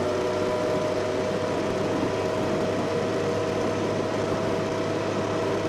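Vehicle running at a steady pace: an even drive noise with a low hum and a few steady whining tones, holding constant without revving.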